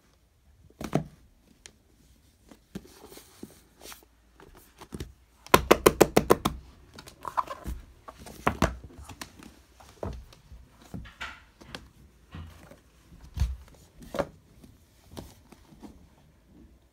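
Handling noise as paperback books are picked up and set down on a table: scattered thunks and knocks, with a quick run of about eight sharp taps about five and a half seconds in.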